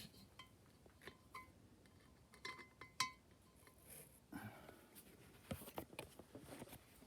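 Faint, scattered light metallic clinks and taps of tools and parts being handled, the sharpest a short ringing clink about three seconds in.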